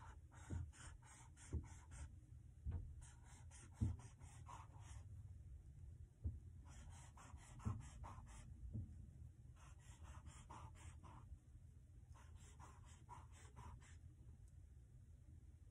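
Felt-tip marker drawing zigzag lines on a paper easel pad: faint runs of quick back-and-forth scratching strokes, several a second, in about five bursts with short pauses between, along with a few low thumps.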